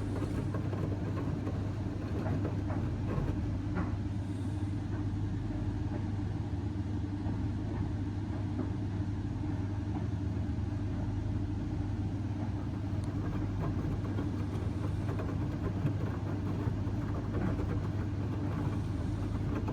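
Indesit washing machine running near the end of the main wash on its 85 °C baby cycle: a steady low hum and rumble with scattered faint ticks.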